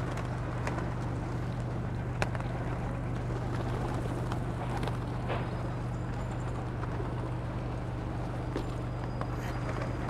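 A steady low mechanical hum, such as a nearby engine or machinery, runs under a faint outdoor noise, with a few scattered light clicks.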